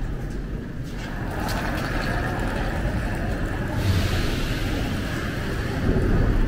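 A Moscow metro train running, heard from inside the carriage: a steady rumble and rush of wheel and tunnel noise that grows louder about a second in.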